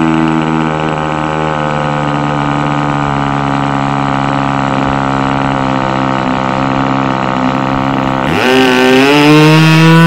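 Model-aircraft nitro glow engine running steadily at a constant speed, then throttled up sharply about eight seconds in, its pitch rising quickly and holding high.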